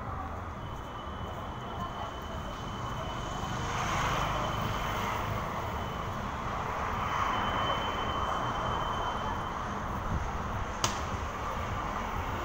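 Street traffic: a steady mix of vehicle engines and tyre noise, swelling about four seconds in and again around seven to eight seconds as vehicles pass. A thin high whine comes and goes, and a single sharp click sounds near the end.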